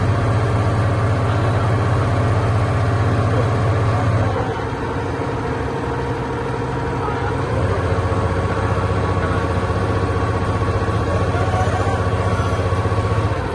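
Long-tail boat engine running. It eases off about four seconds in and picks back up a few seconds later.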